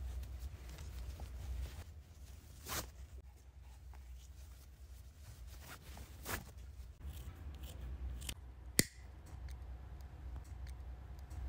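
Hands handling and knotting satin pointe-shoe ribbons, a few soft rustles and scrapes. About nine seconds in there is a single sharp click, a disposable lighter being struck, followed by a faint steady tone.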